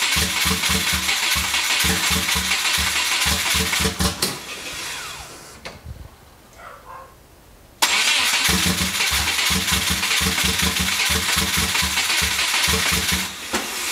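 Subaru WRX turbocharged flat-four being cranked by the starter in two attempts, with a steady rhythmic chug that never catches. The starter stops about four seconds in and winds down, then cranks again abruptly about eight seconds in until near the end. The engine turns over but won't fire, which the owner suspects is from no fuel reaching it.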